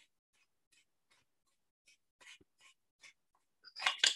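Faint, light scraping and tapping as metal airgun parts are handled, with a louder clatter near the end as the air tank is picked up.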